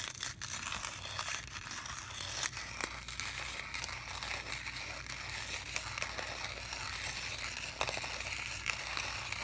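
Coffee beans being ground in a hand-cranked ceramic burr grinder set to a fine grind: a steady gritty grinding with many small crackles.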